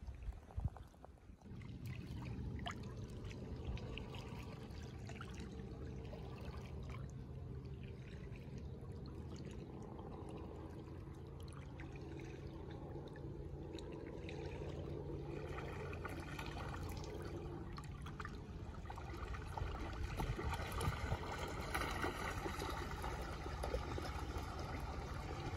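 Lake water lapping and trickling at a pebbly shore, a steady wash that grows louder and brighter in the second half, with small splashes.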